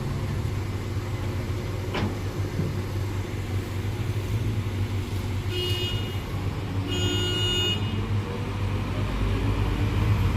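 Vehicle engine running steadily, with two short high-pitched horn honks about six and seven seconds in.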